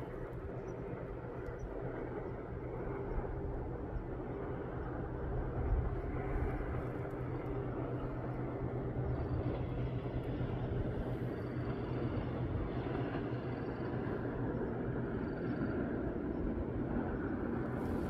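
A distant engine droning steadily under a wash of outdoor noise, slowly growing louder.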